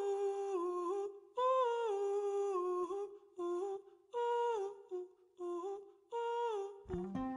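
A single voice humming or singing a wordless melody unaccompanied, in short phrases that step down in pitch with brief pauses between them. Near the end, fuller backing music comes in.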